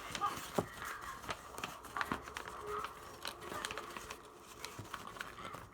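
Sheet of paper rustling and crackling as it is handled and folded, a scattered series of short crisp crackles and taps.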